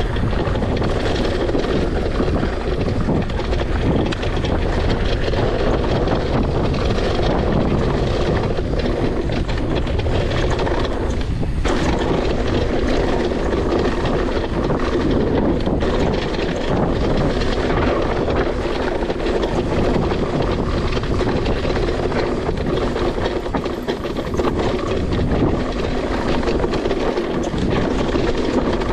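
Steady rushing wind buffeting the microphone and rumble from a mountain bike rolling fast down a dirt singletrack, with tyres on loose dirt and the bike's rattle mixed in.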